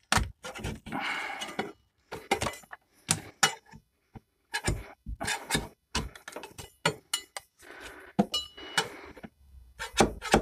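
A metal tool knocking and scraping at the Lada 2101's bodywork, chipping off old sound deadening to expose the rust beneath: an irregular run of sharp metallic knocks and clinks with a few short scrapes.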